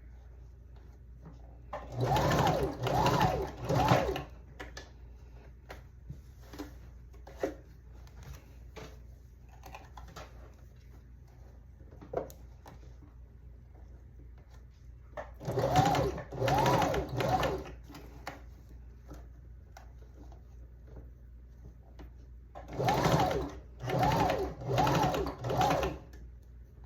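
Janome sewing machine stitching a hair weft track onto a wig cap: three runs of quick stitching, each a few short bursts in which the motor speeds up and slows again. Faint clicks of handling come between the runs.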